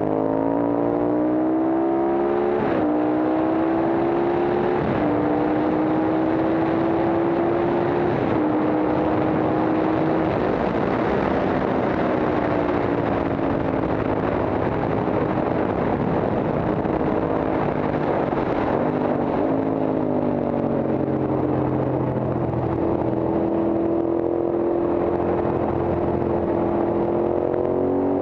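Horvath Guzzi racing motorcycle's V-twin engine heard onboard at speed, accelerating through three upshifts in the first eight seconds, easing off around the middle and pulling up through the revs again in the second half. Wind rush over the microphone runs under it throughout.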